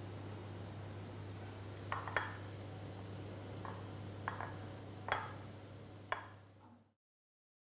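A few light taps and rustles of fingers working a dough ball in a small ceramic bowl of flaked almonds, over a steady low hum. The sound fades out to silence near the end.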